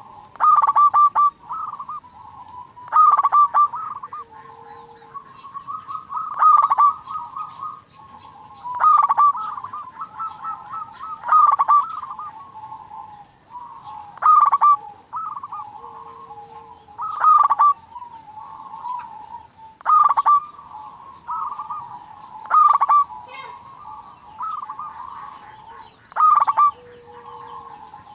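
Zebra dove (perkutut) singing: a loud, rapid, stuttering cooing phrase repeated about every two and a half to three seconds. A few softer, lower coos fall between the phrases.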